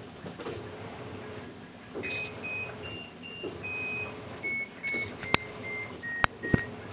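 An electronic beep tune: a string of short pure beeps stepping up and down in pitch, starting about two seconds in, with a few sharp clicks near the end.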